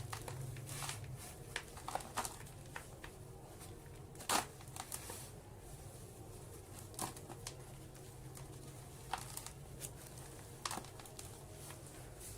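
Soft dirt slabs crumbling and breaking apart, giving scattered dry crackles and snaps. The biggest snap comes about four seconds in. A low steady hum runs underneath.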